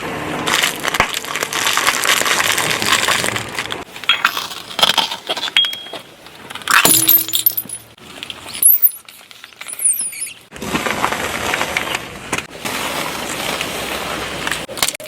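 A car's tyres rolling over and crushing objects: long runs of crunching and crackling with sharp clicks and a few brief squeaks in between.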